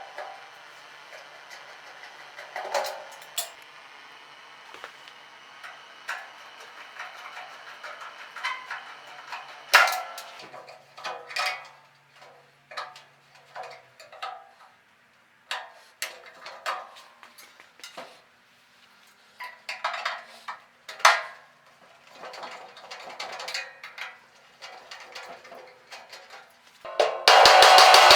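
An all-metal school desk being taken apart by hand: scattered metallic clanks, clicks and knocks of tools and sheet-metal parts. Near the end a power tool starts and runs loudly and steadily.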